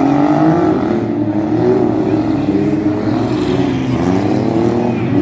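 Several race car engines revving together, their pitches rising and falling as the cars accelerate and back off around the dirt track.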